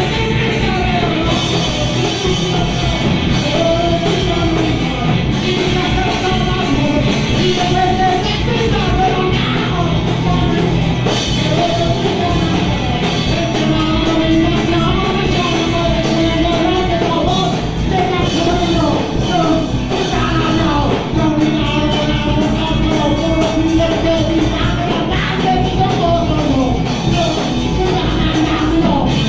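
Live punk rock band playing loudly, with distorted electric guitars, bass and drums under a singer whose voice wavers over the band.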